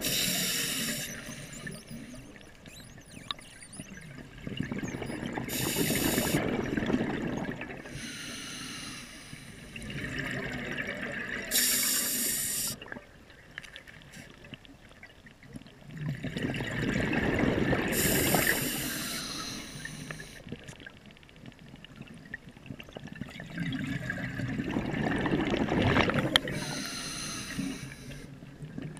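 A scuba diver breathing through an open-circuit regulator underwater: about five breaths, each a short hissing inhale followed by a longer burble of exhaled bubbles.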